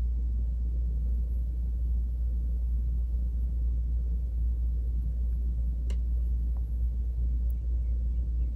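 Steady low background rumble, with one faint light click about six seconds in.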